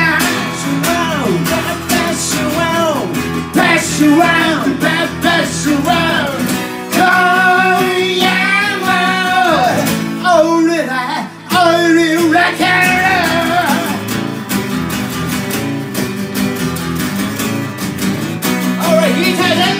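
Two acoustic guitars strummed in a live rock-and-roll song with a singer through a microphone. The singing stops about two-thirds of the way through, leaving the guitars strumming on their own.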